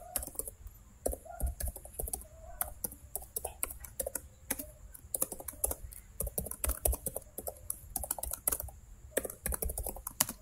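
Typing on a laptop keyboard: quick runs of irregular keystroke clicks with short pauses between them.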